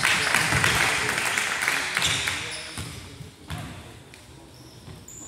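A basketball bouncing as it is dribbled on a hardwood gym floor, with a few separate bounces. Noisy crowd voices echo in the gym, loudest at the start and dying down over the first few seconds.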